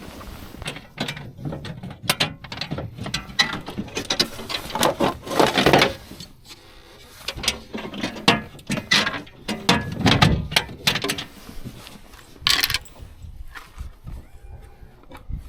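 Fishing reel being cranked: runs of quick clicking and rattling gear noise in two main stretches, with pauses between, and one sharper click a little past the middle.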